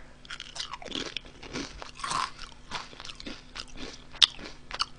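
Person biting and chewing Honey Butter Chip potato chips, a run of irregular crisp crunches with one sharper snap near the end.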